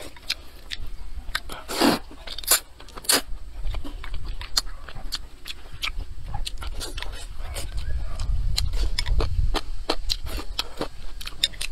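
Close-up eating sounds: a man slurping and chewing springy rice noodles, with many short wet smacks and clicks of the mouth. A low rumble runs under the middle part.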